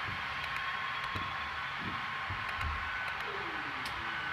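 Model autorack cars rolling past on the track: a steady rushing of wheels on the rails with a faint steady whine and light scattered clicks.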